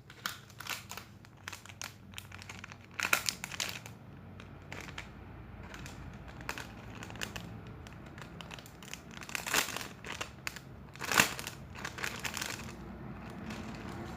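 Crinkling and crackling as cake-themed squishy toys are handled and squeezed. It comes in short bursts, strongest about three seconds in and again about eleven seconds in.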